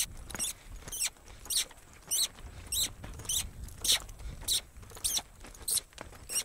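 Western saddle leather creaking in a regular squeak, about every 0.6 s, in time with a horse's lope stride as it circles a barrel. A low rumble of hooves in the soft dirt runs beneath it.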